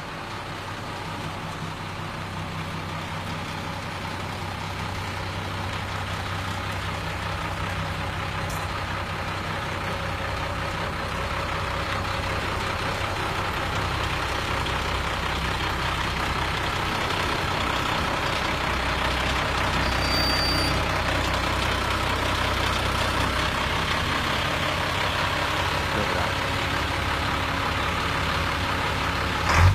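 International DT466 inline-six diesel engine running steadily at an even speed, a deep diesel sound, growing slightly louder over the stretch.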